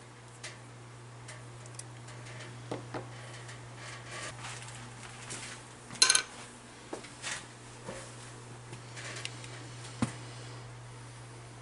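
Small metal parts and hand tools clinking and tapping as they are handled on a workbench, in scattered irregular knocks, the loudest about six seconds in. A steady low hum runs underneath.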